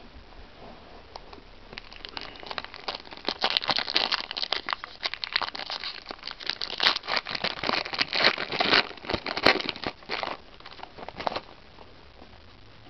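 Foil Yu-Gi-Oh booster pack wrapper crinkling as it is handled and opened. The crinkling starts about two seconds in and stops shortly before the end.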